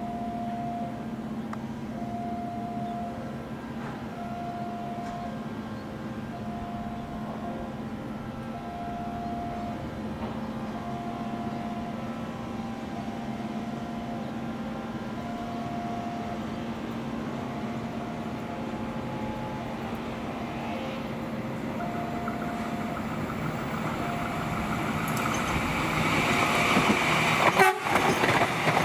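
KRL KfW Commuter Line electric train pulling away from the station and drawing closer: a steady hum with a short beeping tone repeating about every second and a half. Near the end the wheel and rail noise grows loud as the cars pass close.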